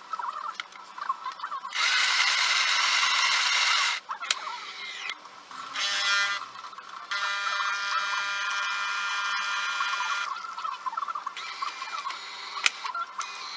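De'Longhi ESAM1000SJ espresso machine running in three steady mechanical bursts: a long one, a short one, then another long one.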